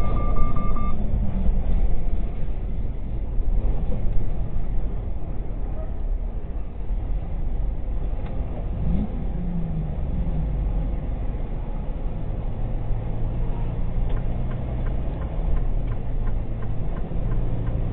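Steady engine and road rumble heard from inside a vehicle's cab at highway speed. About nine seconds in, an engine note briefly rises and falls. Faint ticking comes near the end.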